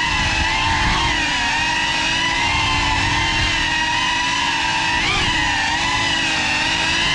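GEPRC CineLog 35 cinewhoop's brushless motors and ducted propellers whining, the pitch wavering up and down with throttle and rising briefly about five seconds in.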